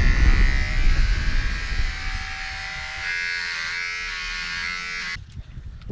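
Electric hair clippers buzzing as they shave a head, the buzz settling into a steadier, more pitched hum about two seconds in. The buzz stops abruptly about five seconds in.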